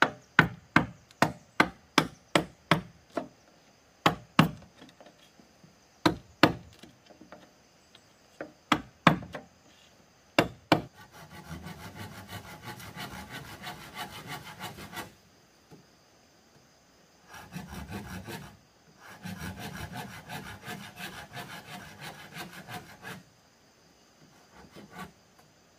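About fifteen sharp strikes on bamboo over the first ten seconds, then a hand saw cutting through bamboo in three spells of steady rasping strokes.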